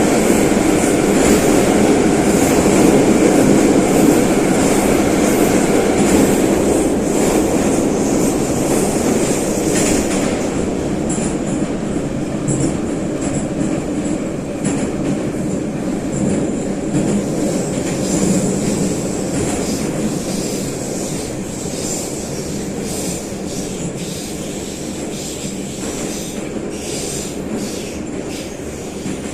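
Interior of a St. Petersburg-built 81-717/714-series metro car running through a tunnel: steady wheel and rail noise that slowly gets quieter, with a few sharp rail-joint clicks near the end.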